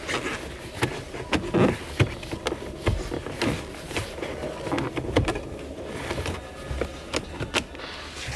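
Rubber shift boot being pressed and worked into place around a manual shift lever by leather-gloved hands: rubbing and rustling with irregular clicks and knocks.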